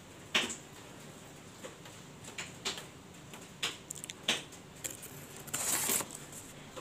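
Scattered light clicks and taps of small glass fish tanks being handled. Near the end comes a short scraping rustle as a hand moves the cardboard divider between the tanks.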